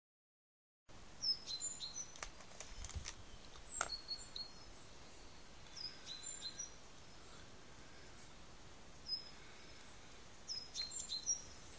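A small songbird singing short, high chirping phrases, repeated in about five bursts with pauses between, over faint outdoor hiss; a few faint clicks sound in the first few seconds.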